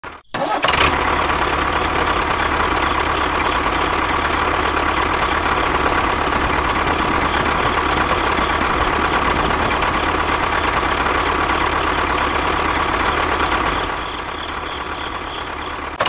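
Tractor engine sound starting up about half a second in and then running steadily at a constant pace, dropping somewhat in level a couple of seconds before the end.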